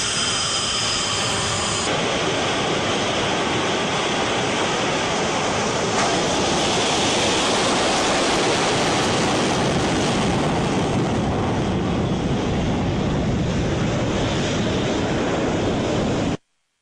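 Jet engines of MiG-21-type delta-wing fighters on the takeoff roll: a loud, steady roar with a thin high whine over the first two seconds. The roar cuts off suddenly near the end.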